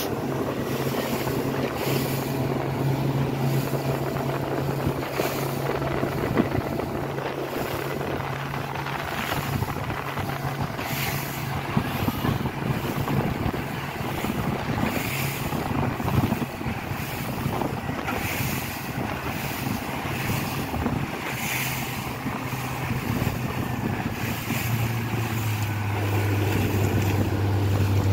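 Suzuki outboard motor running steadily under load, towing a banana boat, with wind buffeting the microphone and water rushing past the hull. Near the end its tone drops lower and gets louder.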